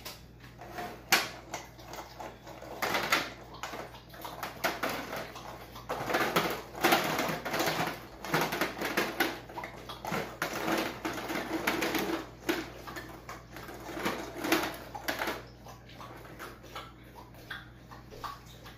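Quail eggs clicking and clattering against each other and against an aluminium foil roasting pan as they are tipped out of a stainless steel bowl and spread by hand: a busy run of small clicks and rustles, thickest in the middle and thinning near the end.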